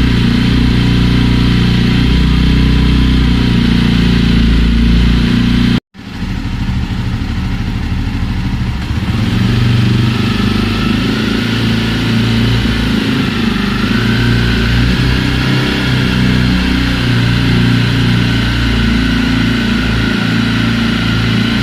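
Jawa motorcycle engine running steadily on the stand. About six seconds in, the sound cuts out for a moment, then comes back and settles into a steady run.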